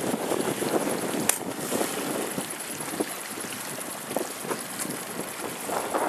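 Wind and choppy sea water splashing around a boat on open water, with a sharp knock about a second in.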